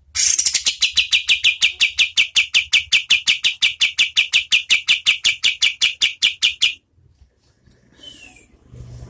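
A kapas tembak songbird giving its rapid-fire 'tembakan' burst: one loud, high note repeated about six times a second for some six and a half seconds, then stopping abruptly. A few faint calls follow near the end.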